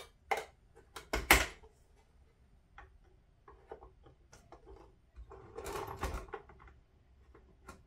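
Plastic clicks and knocks as a clear plastic feed tube is pushed and fitted into a Dillon case feeder and a 3D-printed sorter box: a few sharp knocks in the first second and a half, the loudest about 1.3 s in, scattered small ticks, then a longer stretch of rubbing and clicking around six seconds in.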